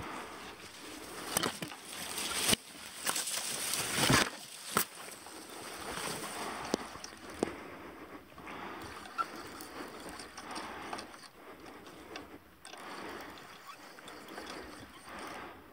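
Water sloshing and splashing, with scattered sharp knocks; the loudest burst comes about four seconds in.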